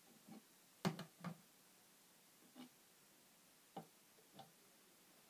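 Small plastic toy figures being set down on a wooden tabletop: a handful of faint, irregular taps, the loudest about a second in.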